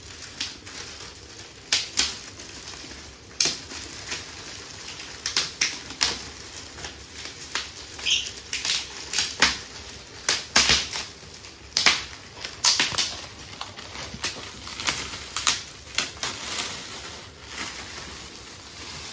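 Gift wrapping being torn open and crinkled by hand to unwrap a large picture frame: irregular sharp rips and crackles with softer rustling between them.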